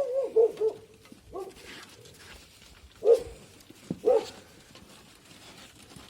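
A dog giving four short barks and whines in about four seconds.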